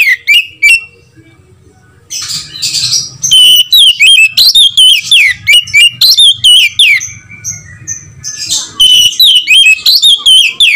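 Oriental magpie-robin singing loudly in fast runs of whistled notes that slide up and down, broken by a harsh raspy passage a couple of seconds in and a short pause before it. This is the full 'gacor' song that keepers play to stir other magpie-robins into singing.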